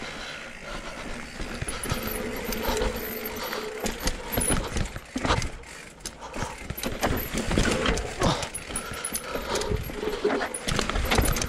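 Cube Stereo 170 full-suspension enduro mountain bike descending, tyres rolling over grass at first. From about four seconds in it rattles and knocks irregularly as it rides over rocks.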